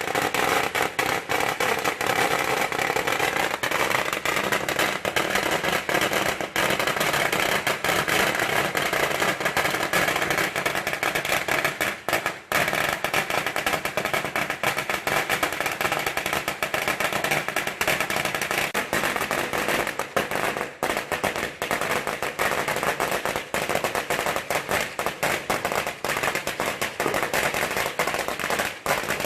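A long string of red firecrackers going off in a dense, continuous rapid crackle, with a brief break about twelve seconds in.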